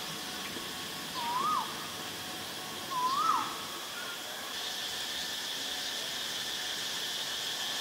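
Asian barred owlet calling: two short whistled notes, each rising and then dropping sharply, about two seconds apart. A steady high hiss sets in about halfway through.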